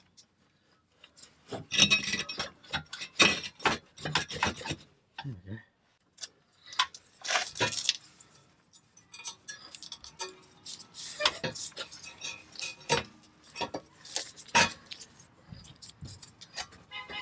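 Irregular metal clinks, knocks and scrapes of hand tools and exhaust pipe being worked loose and handled.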